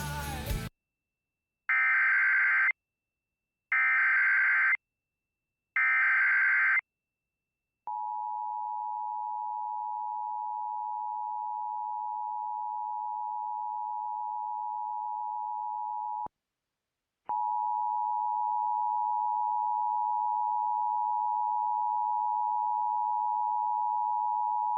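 Emergency Alert System start of a new alert, here a tornado warning: three short screeching digital header bursts about two seconds apart, then the steady two-tone attention signal held for about eight seconds, a one-second break, and the attention tone again.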